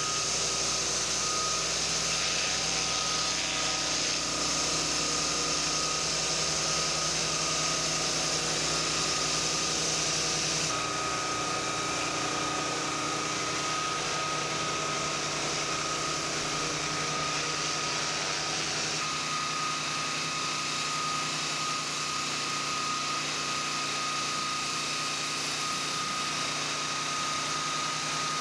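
Pressure washer running while a 20-inch stainless steel surface cleaner with a front nozzle broom sprays hot water onto concrete: a steady hiss of water jets over an engine hum with a constant whine. The sound shifts abruptly about 11 seconds in and again near 19 seconds.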